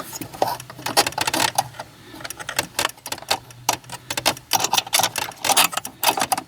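Metal tools and hardware clicking and rattling in quick, irregular clusters as a screw, with a nut used as a washer, is fitted and tightened at a loose clutch pedal.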